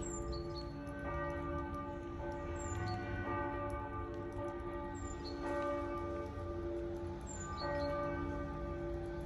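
Church bell tolling, struck about every two and a half seconds (four strikes), each stroke ringing on with a long, humming tail that overlaps the next.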